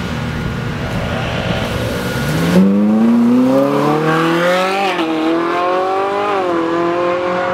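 Ferrari 458 Italia's V8 through a Novitec aftermarket exhaust, a low rumble at first, then accelerating hard about two and a half seconds in as the car passes close. The note rises, drops at an upshift about five seconds in, rises again and drops at a second upshift, then holds steady as the car pulls away.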